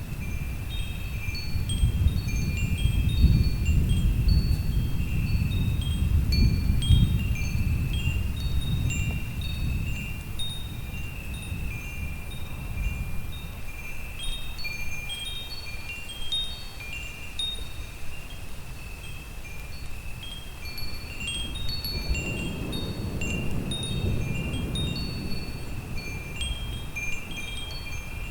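Wind chimes ringing at random, with clear high tones sounding throughout, over low rolling thunder that rumbles through the first third and swells again about two-thirds in.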